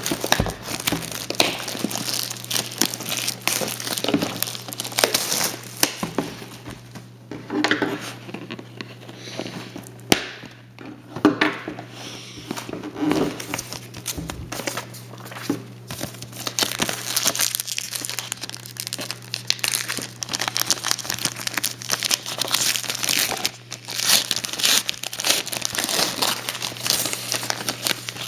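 Plastic shrink wrap crinkling and tearing as it is stripped from a box of trading cards, followed by the crinkling and tearing of a card-pack wrapper being opened.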